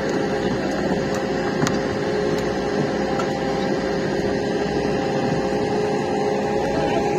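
Steady, unchanging mechanical hum of a running machine, holding a few fixed tones.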